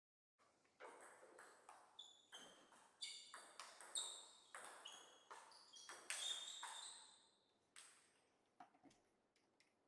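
A table tennis ball bounced over and over, faint light pings at about two to three a second, trailing off after about seven seconds into a few scattered ticks.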